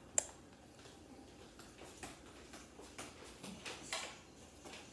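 Faint scattered clicks and taps in a quiet room, the sharpest just after the start and a few more near the end.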